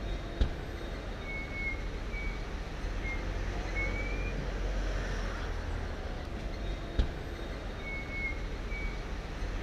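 Outdoor city ambience: a steady low rumble of traffic, with a few short high chirps and a sharp click twice.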